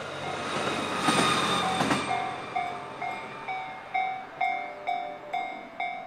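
A train running past over the rails for about the first two seconds, then a Japanese level-crossing warning bell dinging steadily, about two strikes a second.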